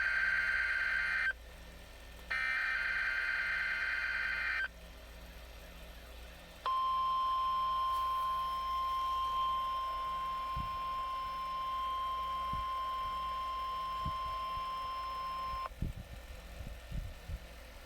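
NOAA Weather Radio emergency alert tones from a Midland WR300 weather radio. First the end of one burst of digital SAME header data tones, then a second full burst about two seconds long. About two seconds later the steady 1050 Hz warning alarm tone sounds for about nine seconds and cuts off sharply, followed by a few faint thumps.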